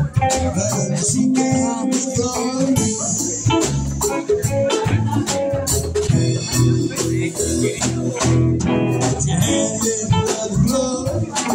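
Live rock band playing: electric guitar, bass guitar and drum kit, with congas played by hand along with them.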